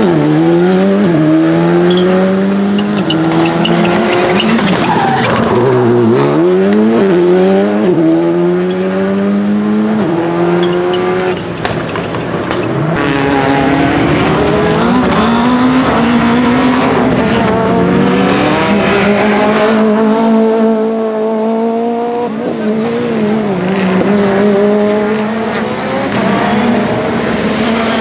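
Rally car engine at full throttle, its pitch climbing and dropping back at each upshift about every two seconds. For the second half it holds a steadier, wavering pitch.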